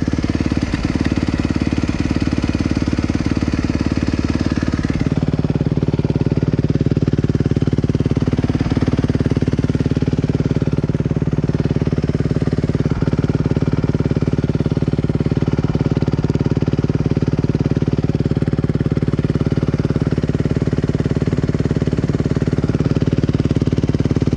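Suzuki RM-Z250 dirt bike's single-cylinder four-stroke engine idling steadily, with no revving.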